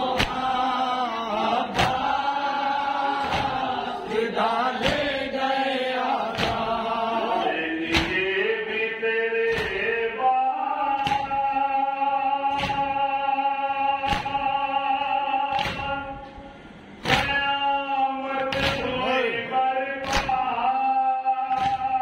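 Men's voices chanting a noha, a Shia mourning lament, with sharp hand-on-chest matam strokes keeping a slow, even beat about every one and a half seconds. The chanting breaks off briefly about sixteen seconds in, then resumes.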